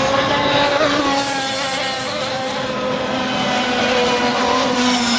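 Several petrol-engined RC racing boats with 26–35cc two-stroke engines running flat out together, a high, buzzing mix of engine notes whose pitches drift up and down as the boats pass round the course.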